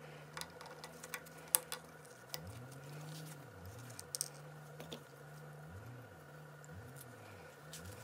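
Scattered light clicks and taps of small metal pump parts being handled as the burner fuel pump's gear assembly is worked loose and lifted out, the sharpest about a second and a half in. A faint low hum runs underneath.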